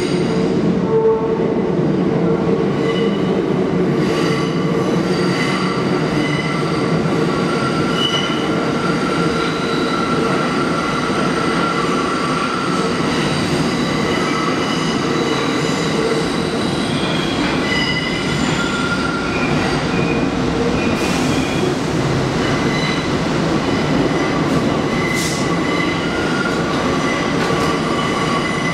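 R62A subway train pulling into an underground station: a steady loud rumble of wheels on rail with high, shifting wheel squeal. There are a couple of short high hisses about three quarters of the way through.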